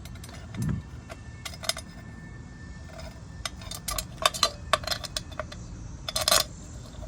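Small steel parts clicking and clinking as a replacement woodruff key is handled and worked into the shaft's keyway, with the taps coming thicker about four seconds in.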